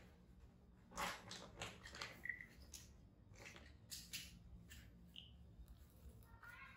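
Quiet handling sounds, soft rustles and light taps on towels, with two short high squeaks from a baby monkey, one about two seconds in and one about five seconds in, and a brief call near the end.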